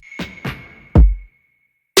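Background music with an electronic drum beat: a deep kick drum about halfway through, with sharp snare hits at the start and the end.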